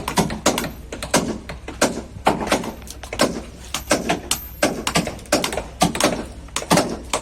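Irregular hammer blows on wood, about three a second and overlapping as if from more than one worker: new planks being fastened to a wooden fishing boat's hull.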